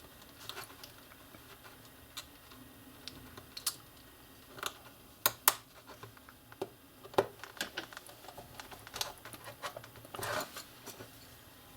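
Light, irregular clicks and taps of small screws and a precision screwdriver being handled on a mobile phone's plastic housing, a little more frequent in the second half.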